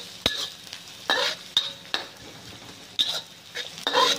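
Chopped garlic sizzling in hot oil in a wok, stirred with a wooden spatula that scrapes and knocks against the pan in short strokes every half second to a second.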